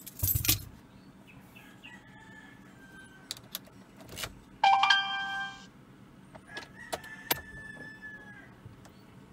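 A rooster crows once, about a second long, about halfway through, the loudest sound, with fainter crowing later. A sharp thump right at the start and a few small clicks of a key being worked into a Ford Ranger's ignition lock.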